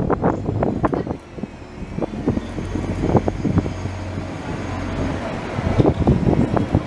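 Bus engine running with a steady low drone as a convoy of buses and trolleybuses passes close by. Wind buffets the microphone in gusts at the start and again near the end.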